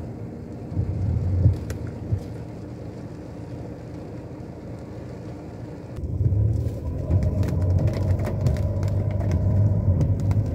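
Car cabin noise while driving in heavy rain: a steady low rumble of tyres on the wet road. About six seconds in the sound changes abruptly and grows louder, with scattered sharp taps of rain striking the car.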